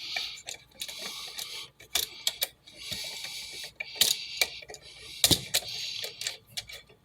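Scattered small metal clicks and scraping as the ground wire is hooked onto the green ground screw of a wall switch. Three sharper clicks stand out, about two, four and five seconds in.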